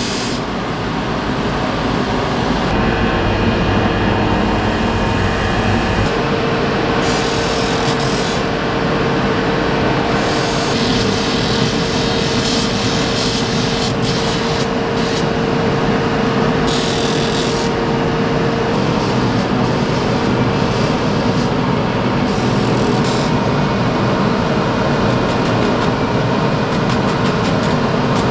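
Stainless steel scissor blades being ground on a spinning grinding wheel: a steady rasping grind over machine hum, its high hiss changing abruptly several times, with a steady whine through the first half.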